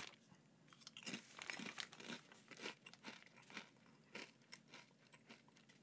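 Faint, irregular crunching of a cracker-like vegetable-pulp chip being chewed, with a little crinkle of the chip bag at the start.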